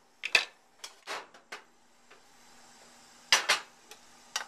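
Scattered clinks and knocks of kitchenware: a pan, a plate and utensils handled for plating. There are several light knocks in the first second and a half and a louder double clatter about three seconds in.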